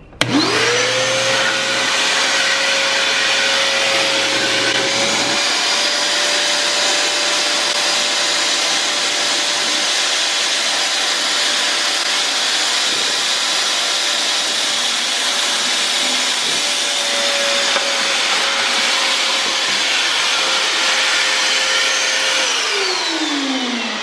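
Schulz Elektro 1400 W wet-and-dry vacuum cleaner switched on, its motor spinning up within a second to a steady high whine as the hose sucks water out of a bucket. Near the end the whine falls in pitch as the motor winds down.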